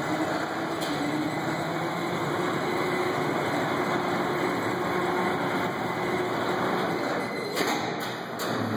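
Electric hoist motor running steadily as it lifts a lathe on slings, with a faint steady hum; it stops with a click near the end.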